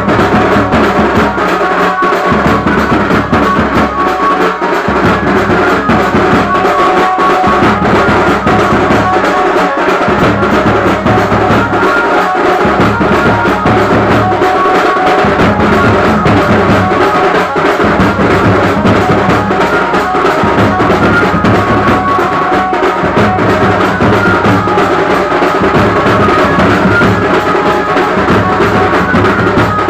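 Indian procession band party playing loud music: drums beating a steady, driving rhythm under held melody notes.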